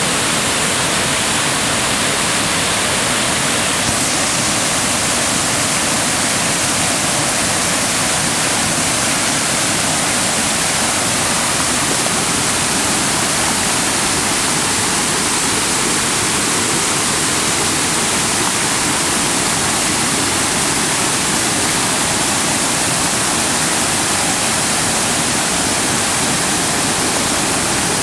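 Whitewater of a creek pouring over a rock ledge and down a stone chute at the top of a waterfall: a loud, steady rush of water.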